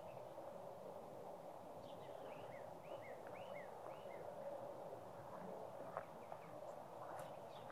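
A bird gives a quick run of short, rising and falling chirps about two to four seconds in, over a faint steady outdoor hiss. A couple of faint clicks come near the end.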